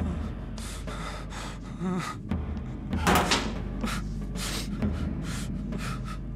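A young man crying, with ragged gasping breaths and sobs every half second or so, loudest about three seconds in.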